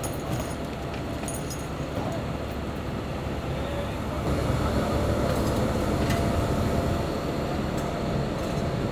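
Heavy trucks pulling trailers, engines running with a steady rumble that grows louder about four seconds in.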